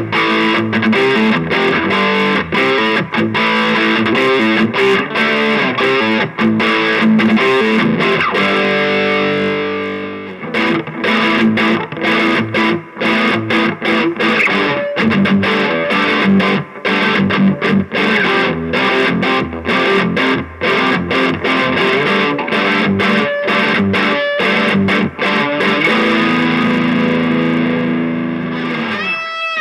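Electric guitar played through a Shredhead distortion pedal into a cheap amplifier: distorted riffs broken by many short, sharp stops, with a held chord fading out near the end.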